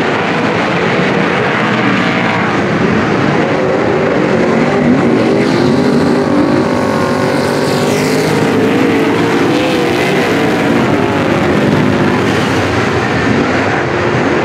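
A pack of supersaloon speedway cars' engines running loud together on a dirt oval, many engines layered with their pitches rising and falling as the field accelerates away at the start of a heat and into the turn.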